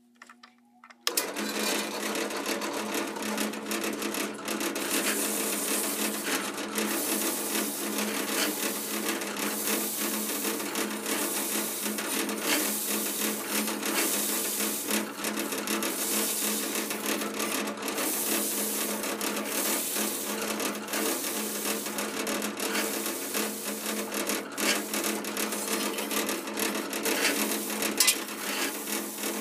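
A drill press spinning a sanding disc against the steel blade of a rusty carpenter's square, a steady abrasive grinding over the hum of the motor, starting suddenly about a second in. The disc is stripping rust off the square.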